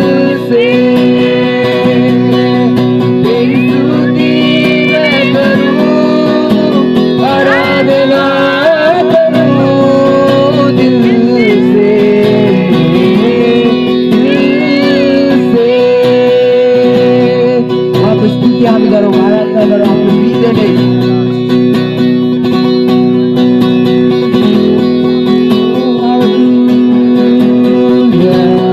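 Acoustic guitar strummed as the backing to a young man singing a worship song into a microphone, amplified through a portable speaker.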